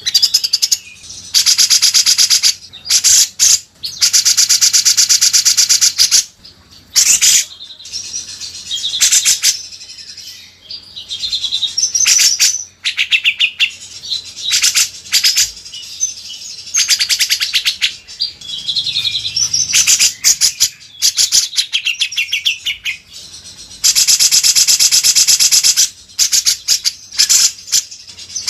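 Songbirds singing in a mixed-species masteran tutor recording. Long, very fast rattling trills alternate with short whistled phrases, and there are two long trill runs, one near the start and one near the end.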